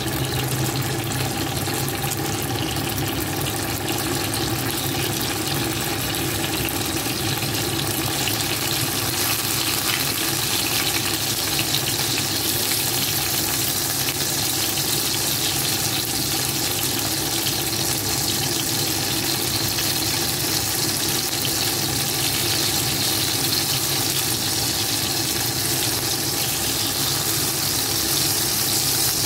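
Eggplant slices sizzling steadily in hot oil in a nonstick frying pan, over a faint steady hum.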